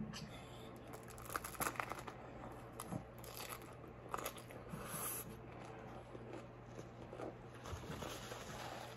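Close-miked eating: biting into and chewing a vegetable taco, with scattered small crunches and crinkles, the sharpest in the first half.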